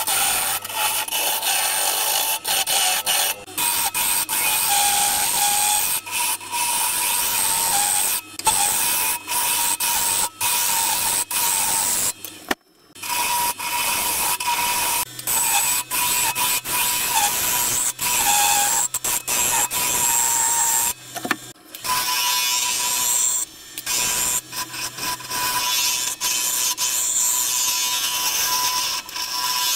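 A bowl gouge cutting the inside of a cedar bowl spinning on a wood lathe: a continuous scraping cut, broken by short gaps where the tool comes off the wood, the longest about halfway through. A thin steady tone runs under the cutting.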